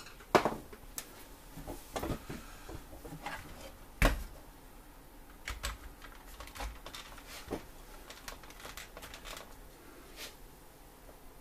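Scattered clicks and knocks from parts being handled, with two sharper knocks about half a second in and about four seconds in. No vacuum motor running.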